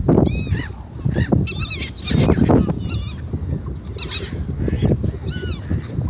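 Gulls calling in short, arched squawks, about a dozen of them, several overlapping around the middle, over a steady low rumble of wind on the microphone.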